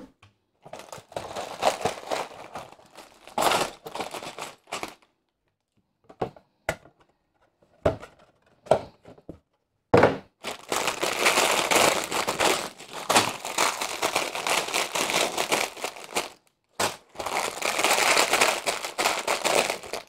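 Plastic bags of LEGO pieces crinkling and rustling as they are lifted out of the box and handled, in on-and-off spells with a few light clicks between them; the longest, densest crinkling comes in the second half.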